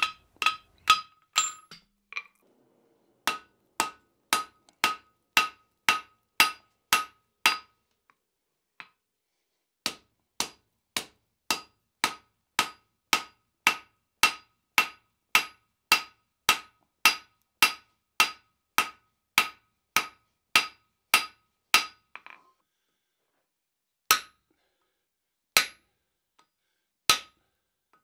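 Blacksmith's hand hammer striking red-hot 5160 steel on the anvil, each blow a sharp ringing clang. The first few blows drive the steel onto the hardy to cut a piece off. Runs of about two blows a second follow with pauses between them, and a few slower single blows come near the end.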